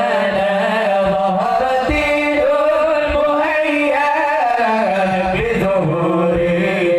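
A group of young men singing a sholawat, an Arabic devotional song in praise of the Prophet, into microphones, with long held notes that bend and slide in melismatic runs.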